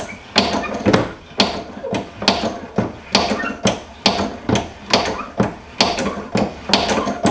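Hand-lever hydraulic pressure test pump being worked, its lever and valve clacking sharply about twice a second as it forces water into the pipework to raise the test pressure.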